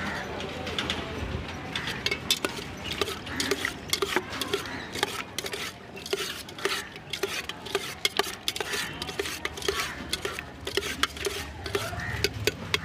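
A metal spoon stirring and tossing cut cucumber pieces in spice mixture inside a tall stainless-steel container, clinking and scraping against its walls several times a second, with a short metallic ring after many of the strikes.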